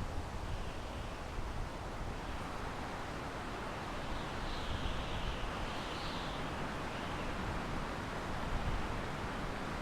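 Wind blowing through pine trees, a steady rushing hiss of moving needles that swells slightly in the middle, with some low rumble.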